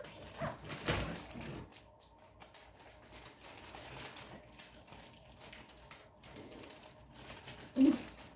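Scattered light taps and rustles from a wrapped present being handled and moved about. A brief child's vocal sound near the end.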